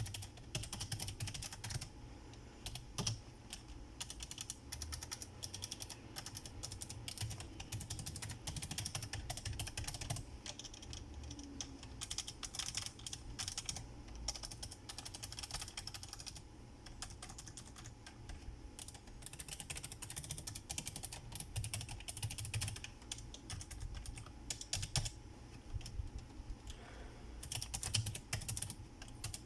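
Typing on a Razer Ornata Chroma mecha-membrane keyboard: a steady stream of soft, irregular key clicks, with brief pauses and a faster flurry near the end.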